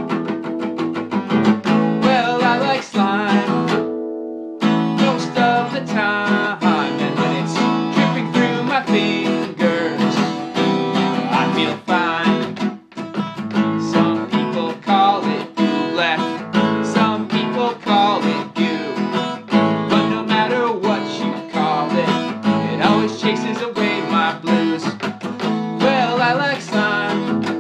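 A song with a voice singing over a strummed acoustic guitar, with two brief breaks in the music.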